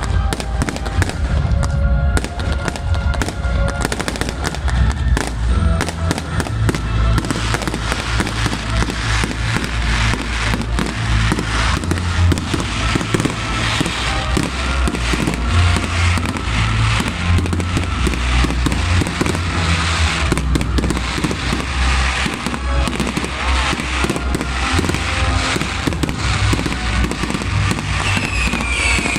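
Fireworks display: a dense, continuous barrage of bangs and crackles that grows thicker about seven seconds in, with music playing alongside.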